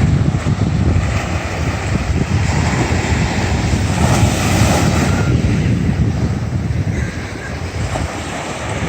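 Wind buffeting the microphone over the steady rush of ocean surf, the surf swelling about four seconds in.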